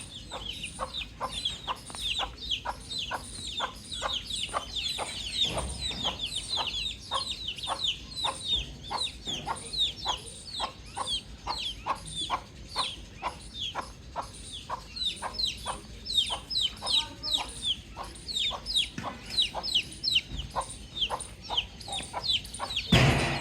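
Baby chicks peeping in a steady stream of high, falling peeps, about three a second, with lower clucking calls underneath. A louder burst of noise comes near the end.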